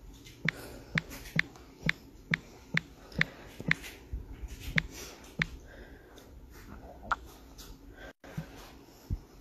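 A run of about eleven sharp taps, roughly two a second, which stop after about five seconds, followed by a few scattered quieter knocks.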